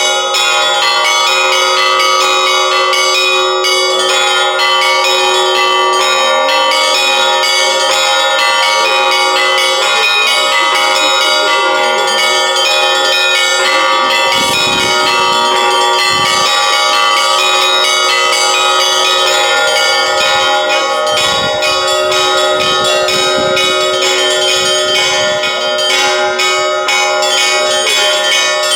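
Russian Orthodox church bells rung by one bell-ringer: a dense, continuous peal of quick small-bell strikes over the lasting hum of the larger bells.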